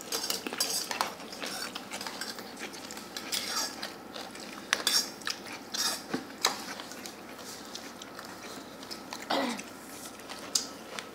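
Metal spoon clinking and scraping irregularly against a stainless steel bowl while rice is scooped up, with chewing between the clinks.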